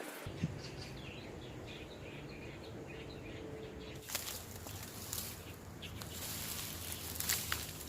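Outdoor ambience: faint repeated high chirping, likely a bird, over a low steady hum. About halfway through it gives way to rustling with a few sharp clicks and taps.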